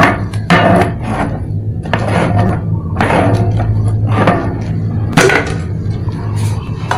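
A homemade ice-cream can packed in ice is rolled by hand back and forth across a tiled floor, giving irregular knocks, scrapes and rattles over a steady low hum. The rolling churns the mix as it freezes.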